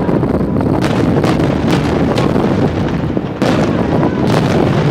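Aerial firework shells bursting in quick succession: a continuous rumble of booms and echoes, with about six sharp bangs standing out.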